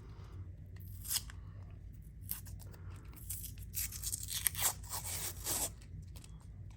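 Electrical tape being peeled off a knife blade in a series of rasping pulls: short ones near the start and a longer stretch of peeling in the middle.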